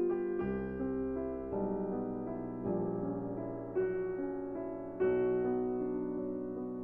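Slow, soft lo-fi piano music: sustained chords over a bass line, a new chord struck about every second or so.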